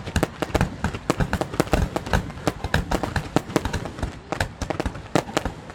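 Fireworks display going off: a dense, irregular string of bangs and pops, several a second, with no let-up.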